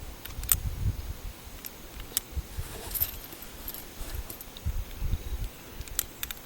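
Scattered light metallic clicks and clinks from handling a Colt Diamondback .38 Special revolver and its cartridges, about four of them spread over several seconds, over a low rumble of wind on the microphone. No shots are fired.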